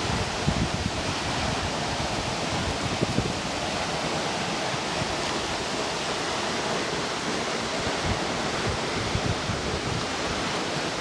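Waterfall rushing in a steady, even roar, with wind buffeting the microphone in irregular low gusts.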